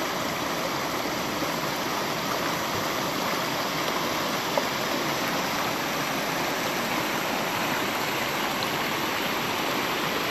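Shallow mountain stream rushing and splashing over rocks and small riffles, a steady, even rush of water.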